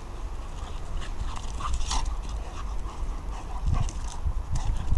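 A dog making a few short vocal sounds about one and a half to two seconds in, over a steady low rumble on the microphone.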